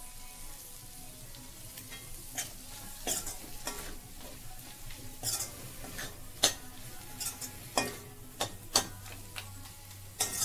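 Chicken pieces sizzling as they fry in a metal kadai while a metal spoon stirs them, scraping and clicking against the pan many times.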